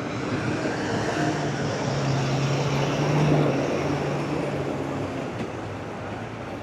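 A large motor vehicle passing in city traffic: a low engine hum over road noise grows louder to a peak about three seconds in, then fades away.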